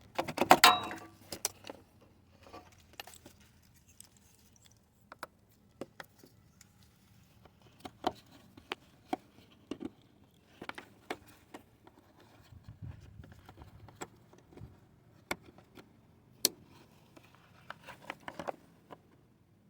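Irregular sharp metallic clicks and clinks of a 10 mm wrench and the terminal bolts as the ground wires are unbolted from the engine wiring harness. A few quick clusters of clinks come a little after the start, about halfway through and near the end.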